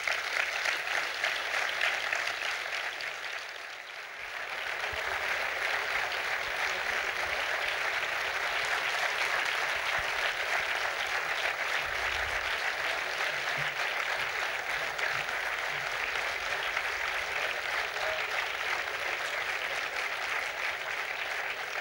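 Audience applauding steadily; the clapping eases about three to four seconds in, then picks up again and holds.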